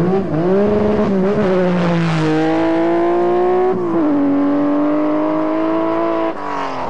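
Rothmans Porsche 911 rally car's flat-six engine at high revs under hard acceleration, with a quick drop in pitch for an upshift about four seconds in, the note then climbing again. The sound falls away suddenly near the end.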